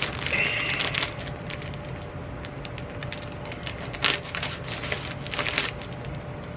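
Clear plastic snack bag crinkling and crackling as it is handled and slit open with a knife: a run of small clicks, with louder bursts of crinkling near the start and about four and five and a half seconds in.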